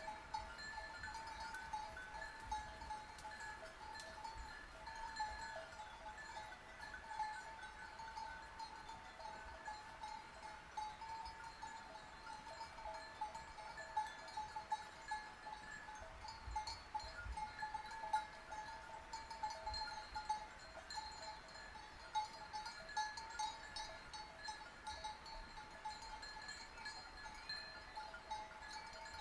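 Bells worn by grazing sheep clanking continuously, a steady jangle of several bell tones with a few louder clanks.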